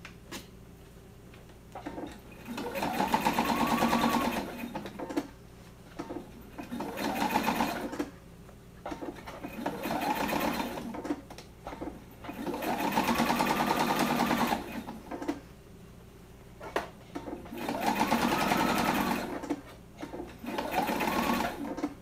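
Electric sewing machine stitching in about six short runs, each one to two seconds long, its motor whine rising and then falling with each run, with pauses between. It is top-stitching a quarter inch in from the edge around a quilted fabric bowl cozy.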